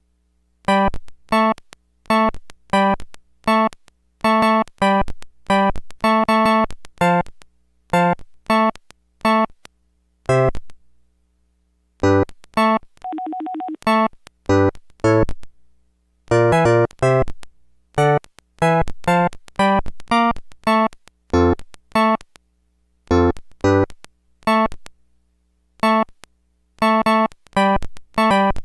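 Phone ringtone playing on a Samsung SPH-A840: a tune of short, quickly fading synthesizer notes. About twelve seconds in, after a brief pause, comes a couple of seconds of a buzzing trill, and then the notes start again.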